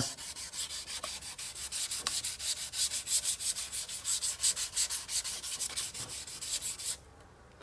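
1200-grit wet-and-dry paper wrapped around a felt pad, wet-sanding sprayed covering lacquer on a white UPVC profile in quick back-and-forth strokes, about five a second, to take off the orange-peel texture of the spray. The sanding stops about seven seconds in.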